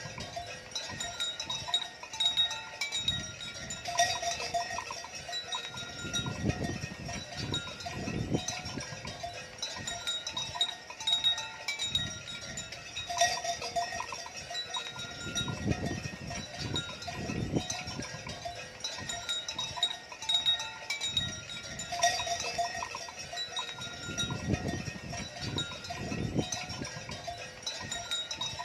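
Cowbells on a herd of cattle clinking over and over, with low gusty noise swelling in and out.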